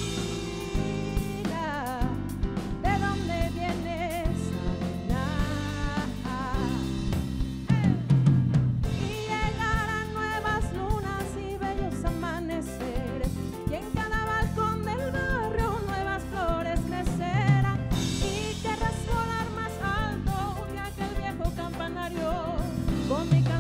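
Live band playing a song: a woman singing in long, wavering phrases over keyboard and drum kit.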